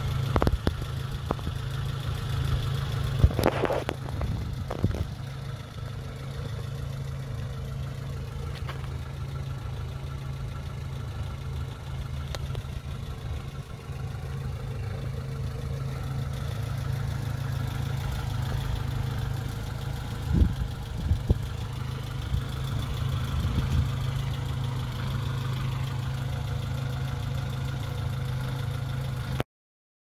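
A 1990–91 Honda CRX engine idling steadily, with a few brief knocks, one about three seconds in and two about twenty seconds in. The sound cuts off abruptly just before the end.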